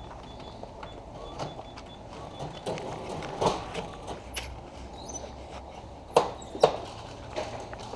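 Scattered knocks and clicks of hard objects being handled over a low room hum. The loudest comes about three and a half seconds in, and two sharp knocks follow close together a little after six seconds.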